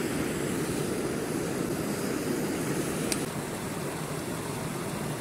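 Primus gas camping stove burner running with a steady rushing roar under a steaming pot, and a single light click about three seconds in.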